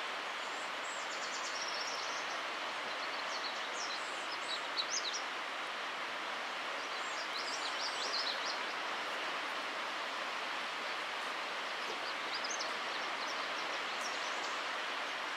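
Small songbirds singing short, high, twittering phrases several times, over a steady outdoor background hiss that is the loudest sound throughout.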